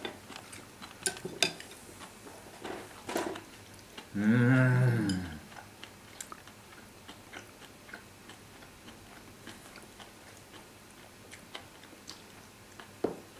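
Chopsticks clicking lightly against a dish while a man eats and chews, with scattered small ticks. About four seconds in he lets out one drawn-out wordless vocal sound, falling in pitch, which is the loudest thing heard.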